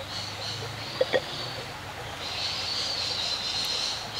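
Rainforest creek ambience: a steady high-pitched chorus that swells about two seconds in, with two sharp clicks close together about a second in.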